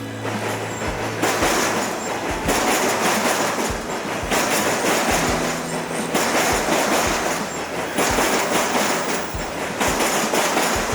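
Train passing close by, its wheels clattering over the rail joints in a steady repeating rhythm.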